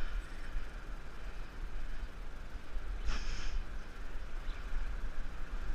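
Steady wash of surf on rocks with wind rumbling on the microphone, and a short, hard exhale from the tired angler about three seconds in.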